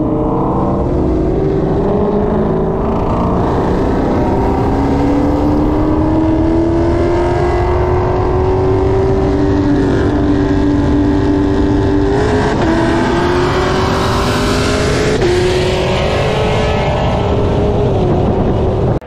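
Car engine and exhaust at full throttle in a roll race, the pitch climbing steadily and dropping sharply at upshifts about twelve and fifteen seconds in.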